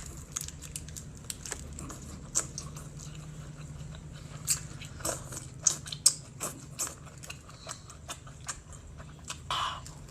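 Close-up eating sounds of seafood: biting and chewing, with many sharp crunching and cracking clicks. A steady low hum runs underneath.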